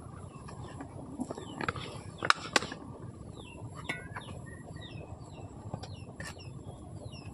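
Small birds chirping: a run of short, downward-sliding chirps, two or three a second, growing busier about halfway through over a steady low background noise. Two sharp clicks come close together a little over two seconds in and are the loudest sounds.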